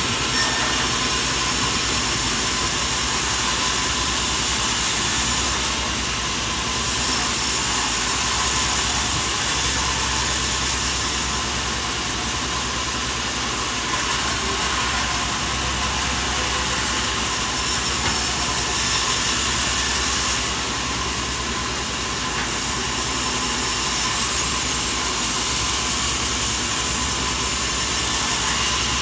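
Sawmill machinery running with a steady, loud mechanical noise that eases slightly a couple of times.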